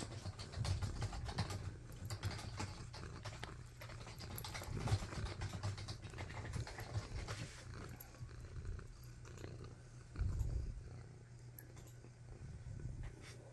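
Domestic tabby cat purring steadily while being stroked, with computer keyboard typing clicking over the purr through the first half. A brief louder low rumble comes about ten seconds in.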